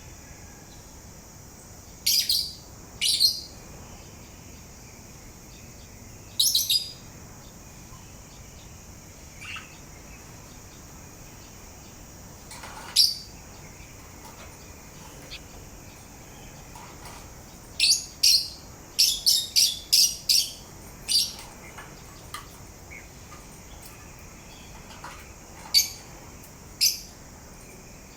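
Pet parrot giving short, high chirps, singly at first, then a quick run of about six in a row some eighteen seconds in.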